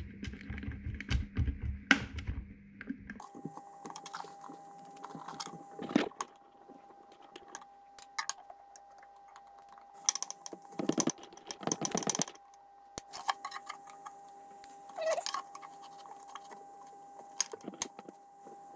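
Thin metal blades, a knife and a saw blade, scraping and clicking against a ukulele's wooden bridge and top as the glued bridge is prised loose. The taps and scrapes come irregularly, busiest about ten to twelve seconds in.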